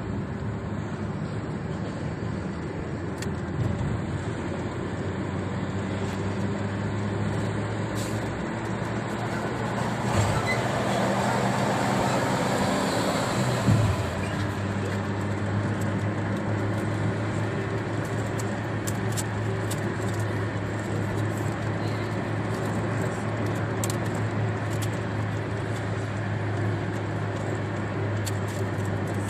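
Steady road and engine noise heard from inside a car driving on a motorway in rain, with rain on the windshield. A louder rush of noise swells up about ten seconds in and ends with a short knock around fourteen seconds.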